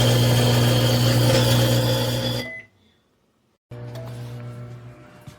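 Toshiba countertop microwave oven running: a loud steady electrical hum with fan noise. It cuts off sharply about two and a half seconds in, with a brief high tone. After a second of silence a fainter steady hum starts.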